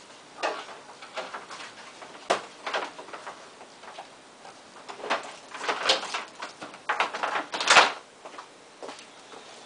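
Intermittent rustles and light knocks of craft supplies being handled and set down on a work table, with a longer scraping rustle near the end.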